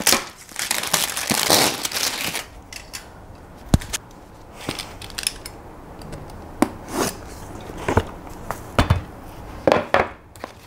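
Plastic wrapping film crinkling as it is pulled off a cardboard product box, dense for the first couple of seconds. Then the box is handled and opened, giving a series of separate light knocks and scrapes.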